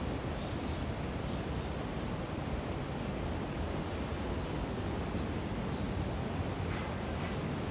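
Steady rushing noise, even across low and high pitches, with a few faint, brief high chirps, one about seven seconds in.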